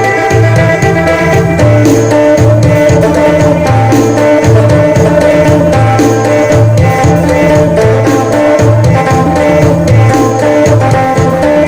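Isan phin sing music: an amplified phin, the northeastern Thai plucked lute, plays a melody over a repeating bass line and a steady drum beat.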